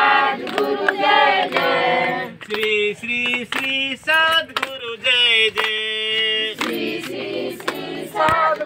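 Group of women's voices singing a Hindi devotional bhajan, with hand claps. For a few seconds in the middle the singing settles into long, held notes.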